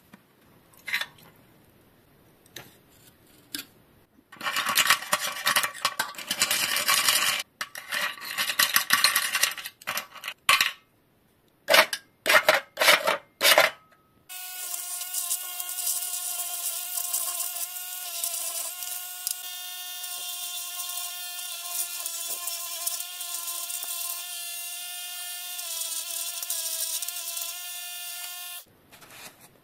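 Bursts of rubbing and scraping noise, then a small motor running steadily for about fourteen seconds, its pitch shifting slightly a few times before it cuts off.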